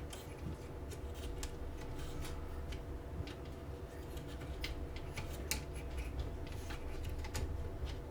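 Irregular light clicks and ticks of a CPU fan cable and small plastic parts being handled and routed on a motherboard, over a faint steady hum.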